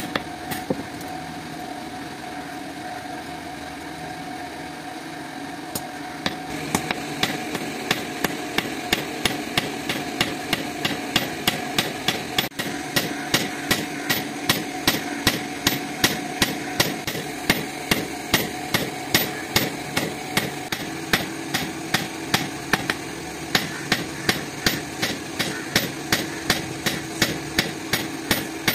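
Hand hammer striking a red-hot steel sickle blade, made from an old tractor plow spring, on a block anvil. A few blows come at the start, then a pause of about five seconds, then a steady run of about three blows a second. A steady hum runs underneath.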